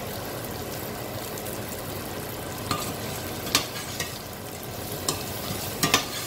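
Chopped okra frying in oil in a stainless steel saucepan, a steady sizzle. Several short sharp clicks and knocks come in the second half, the loudest near the end.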